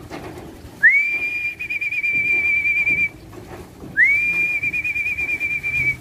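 Two long whistles, each sliding up at the start and then held on one slightly wavering note for about two seconds: a pigeon fancier's call bringing racing pigeons down onto the loft's landing board.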